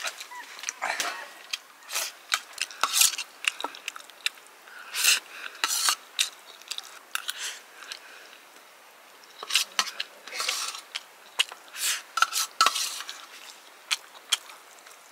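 A metal spoon scraping and clinking against a steel plate as rice is scooped up, in quick clusters with a quieter spell midway.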